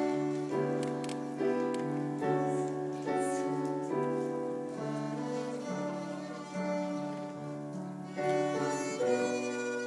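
Two violins playing a slow melody in held notes, with piano accompaniment.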